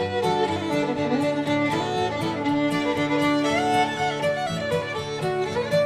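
Background fiddle music: a fiddle plays a tune with sliding notes over a steady rhythmic accompaniment.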